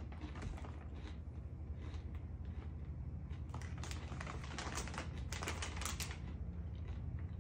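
Plastic snack bag of Snack Factory Pretzel Crisps crinkling and crackling as it is handled and pulled open, densest from about three and a half to six seconds in.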